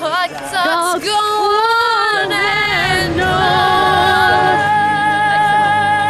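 A young woman singing loudly without clear words: short wavering, gliding notes that settle into one long held note about three seconds in.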